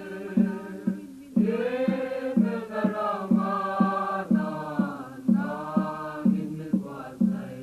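Christian choir music by a Mizo choir: voices holding and gliding between notes over a steady low beat of about two strokes a second, with no clear words.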